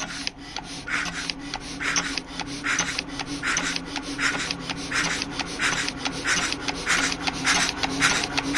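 A diesel fuel injector nozzle, held outside the engine on its fuel line, spraying with a rasping hiss on each stroke of the fuel pump, about once every three-quarters of a second, over a low steady hum. The crisp spray sound is that of a nozzle atomizing well.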